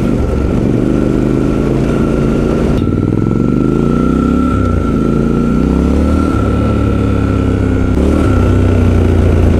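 Triumph Scrambler 1200 XE's parallel-twin engine running under load, its pitch rising and falling as the throttle is worked, with a dip and pick-up about four and a half seconds in and another change near the end.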